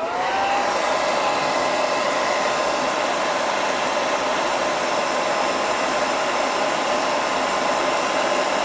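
Handheld hair dryer switched on and blowing steadily, its motor whine rising as it spins up in the first second and then holding a steady pitch under the rush of air. It is heating the phone's camera lens glass to soften the adhesive underneath.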